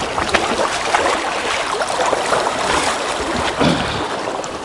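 River water sloshing and splashing around a wading angler's legs as he moves through the current, with many small splashes over the steady rush of water.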